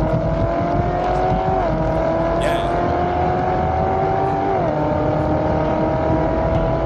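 Chevrolet Corvette C7 Z06's supercharged V8 accelerating, its pitch climbing steadily and dropping sharply at two upshifts, about two and five seconds in. Heavy wind and road noise on the outside microphone.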